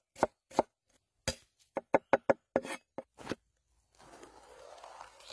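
A wide-bladed kitchen knife chopping a red onion on a wooden cutting board: about a dozen sharp, uneven chops in quick succession. About four seconds in this gives way to a softer, steady rustling noise.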